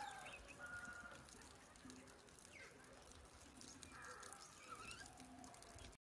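Faint, scattered bird calls: short calls, one every second or so.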